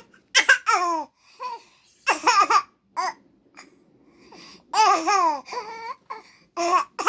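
Laughing and babbling vocal noises in short bursts, each with a quick falling pitch, made to get attention.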